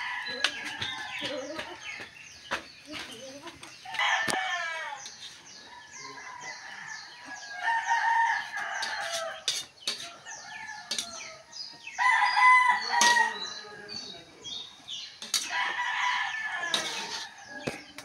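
Roosters crowing, several long crows spaced a few seconds apart, over short scraping and tapping of a metal spatula in a wok of noodles.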